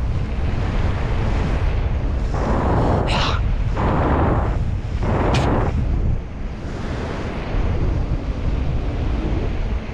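Wind buffeting the microphone during a bicycle ride: a steady low rumble, with two louder rushes of hiss about two and a half and four seconds in.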